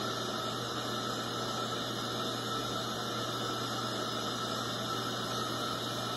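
Steady hiss with a low hum underneath and no distinct events: background room noise.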